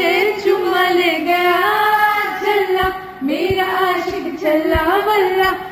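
A woman's voice singing a song without instruments, in informal singing among a group, the held notes wavering from phrase to phrase.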